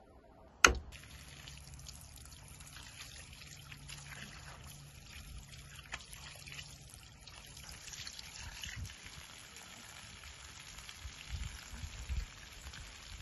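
A sharp click just under a second in, then water from a garden hose pouring steadily into a metal bowl as raw chicken is rinsed in it by hand. Near the end the hose water runs onto the grass.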